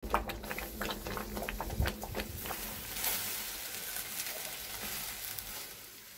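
Crackling and sizzling from a wood-fire barbecue grill: a run of sharp pops in the first couple of seconds, then a steady hiss that fades near the end.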